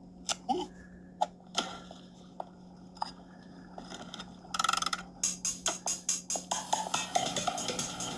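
A few scattered sharp clicks and knocks over a steady low hum, then a short rattle about halfway and quick, regular percussive beats as music with drums comes in.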